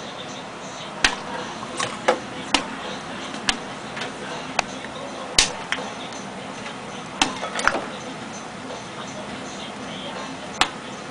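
Popcorn kernels popping one at a time in a microwave: about ten sharp, irregular pops, thinning out toward the end as the popping nears its finish, over a low steady hum.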